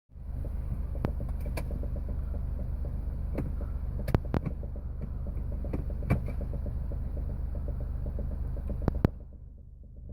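Engine of a 2008 Smart car running with a steady low drone and scattered clicks. It cuts off with a sharp click about nine seconds in.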